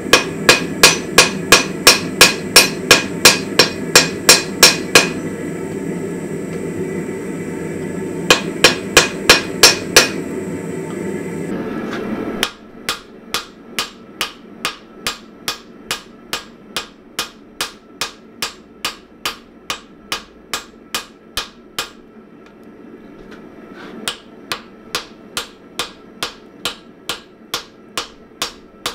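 Hand hammer striking a red-hot steel axe head on an anvil in runs of quick blows, about two to three a second, with short pauses. For the first twelve seconds a steady background rush runs under the blows, then it stops.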